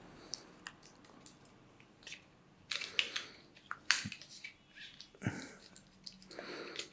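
Small plastic clicks and scrapes as a hot-shoe mounting plate is handled and fitted against the back of an Aputure Amaran pocket LED light. The clicks are scattered, busiest in the second half.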